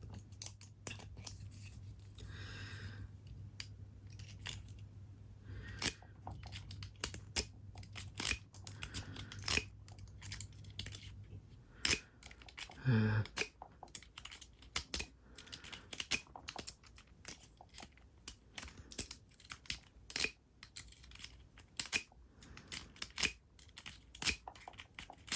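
Lock pick and tension wrench working the pins of a Yale padlock: irregular small metallic clicks and scrapes, with a faint steady hum through the first half.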